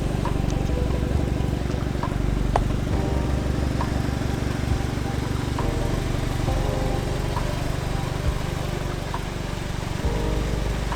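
Volkswagen Polo GTI (AW) 2.0-litre turbocharged four-cylinder idling steadily through its stock exhaust, a version without a petrol particulate filter.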